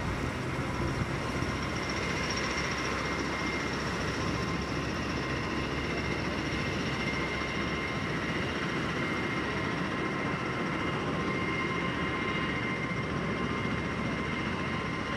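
Humvee ambulance's diesel engine running as it drives away over soft ground: a steady engine noise with a thin, unchanging high whine over it.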